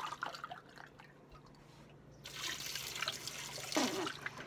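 Water gushing out of a tipped-up water bottle for nearly two seconds, starting about halfway through, after a few light handling clicks.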